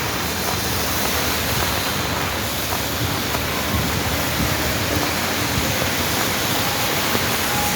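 Rain pouring down, a steady, even hiss.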